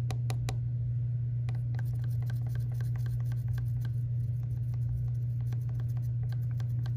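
Wooden popsicle stick stirring inside a small glass jar, with irregular light ticks and scrapes against the glass as oil paint is mixed into mineral spirits. A steady low hum runs underneath and is the loudest sound.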